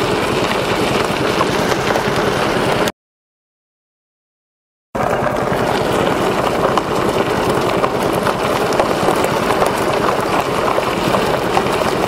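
A wheel rolling over a gravel road: a steady, dense noise of small stones ticking and grinding under the wheel. It cuts off to dead silence a little under three seconds in and starts again about two seconds later.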